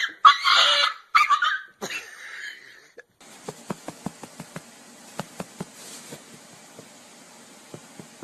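Several loud, harsh animal outbursts from a cat-and-dog scuffle in the first three seconds. Then it cuts to a quiet steady hiss with faint, irregular clicks.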